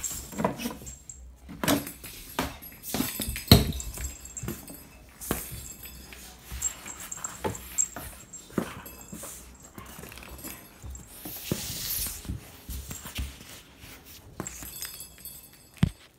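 A cat playing on a wooden floor: irregular knocks, scuffs and rattles, with the plastic cage ball toy knocked about and close rubbing and knocks of handling noise on the phone. One sharp knock comes near the end.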